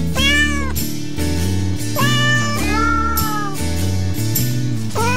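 Background music with a cat meowing four times over it, each meow rising and then falling in pitch, the third one the longest.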